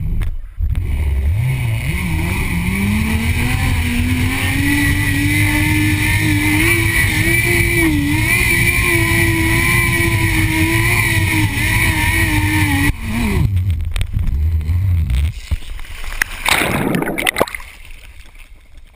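Zipline trolley running along the steel cable: a whine that rises in pitch over the first few seconds as speed builds, then holds steady over wind rumble on the microphone. The whine drops away suddenly about thirteen seconds in, and a splash into the water follows a few seconds later.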